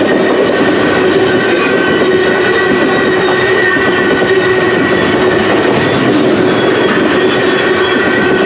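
Coal hopper cars rolling past at trackside: a loud, steady rumble and rattle of steel wheels on rail, with a steady high-pitched squeal from the wheels over it.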